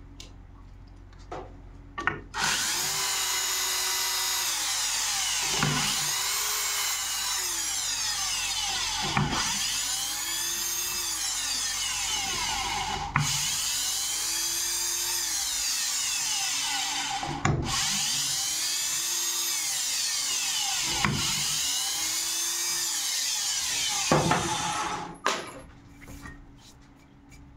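Cordless drill-driver backing the screws out of an aluminium mould plate one after another. Its motor whine rises and falls in pitch with each screw, six times over, with a click between screws.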